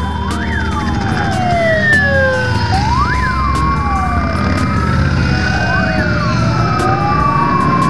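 Parade motorcycles riding past with their engines running, under a siren that wails in long rising and falling sweeps.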